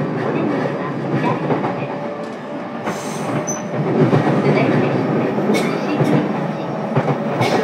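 Running sound of a JR East E233-series electric train heard from inside a motor car: steady wheel-on-rail and under-floor running noise, with a few sharp clicks from rail joints.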